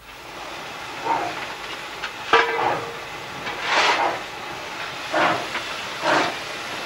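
Steam locomotive hissing steam steadily, with irregular louder rushes of steam every second or two and a sharp metallic clank about two and a half seconds in.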